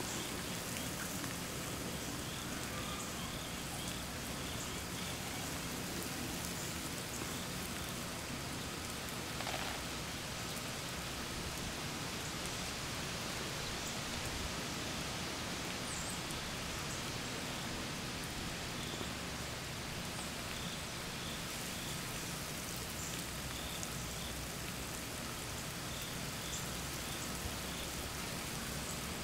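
Steady hiss and patter of water spray from a running lawn sprinkler, falling like rain.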